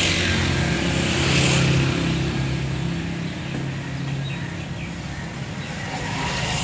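Motorcycle engine running close by amid road traffic, its pitch shifting and loudest in the first two seconds or so, then easing off into steady traffic noise.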